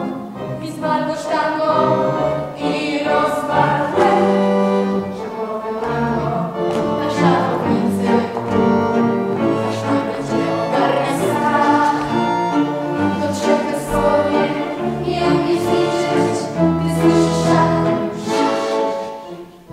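A vocal ensemble sings a tango-style musical-theatre song in several voices, accompanied by cello, viola and keyboard.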